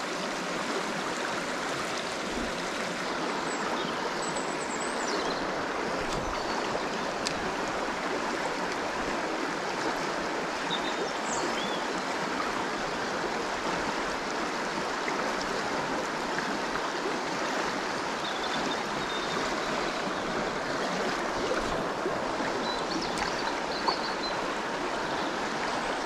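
River water rushing over a shallow rocky riffle, a steady even rush of broken water.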